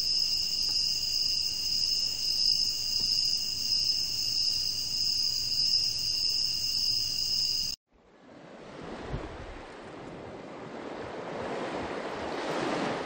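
Recorded ambient nature sounds from a computer's noise player: crickets chirring in a steady high trill, cut off suddenly about eight seconds in. After a brief gap, a recording of sea surf fades in, a rushing noise that swells toward the end.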